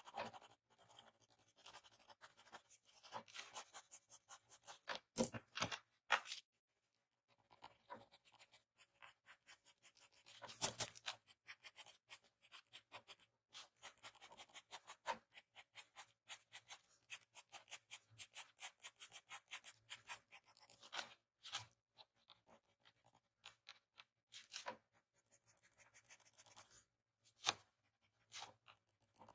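Pencil scratching on paper in rapid short strokes as hair strands are shaded, with a few louder strokes and a brief pause about seven seconds in.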